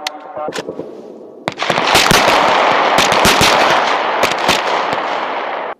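9 mm M17 pistols firing on a range: a shot or two in the first second, then from about a second and a half in, a rapid run of overlapping shots from several shooters with echo between them, ending abruptly.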